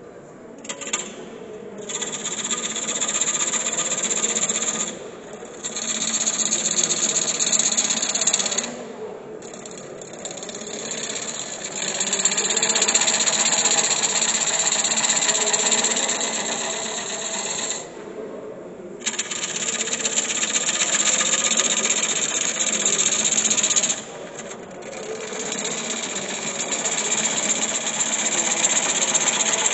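Wood lathe gouge cutting into a spinning wood blank, a loud rasping cut in runs of several seconds that breaks off briefly four times as the tool is eased off the wood.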